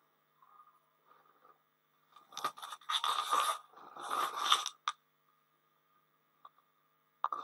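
Marker pen scraping across a whiteboard as it writes, in two scratchy stretches of strokes, the first about two seconds in and a shorter one around four seconds in, followed by a single tick.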